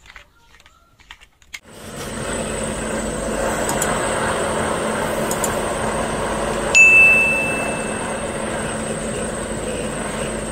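After a few faint clicks, a steady engine-like running noise starts abruptly about two seconds in and keeps going, with a faint hum and a thin high whine. Near the middle a single high ding sounds for about a second.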